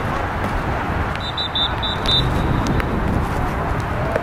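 Open-air background noise with a steady low rumble. About a second in comes a quick run of five short, high-pitched beeps or whistle toots, lasting about a second in all, followed by a few faint clicks.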